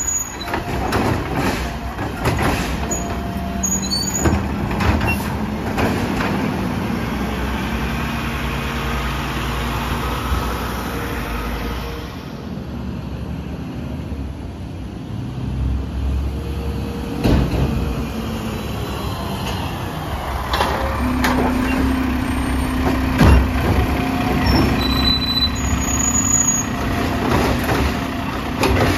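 Mack LR garbage truck working with its Labrie Automizer side-loading arm: the engine runs under load while the hydraulic arm lifts and dumps a cart, then there are air-brake hisses and a few sharp bangs as the truck pulls up to the next cart. About three quarters of the way through, a steady hum starts as the arm's hydraulics work again.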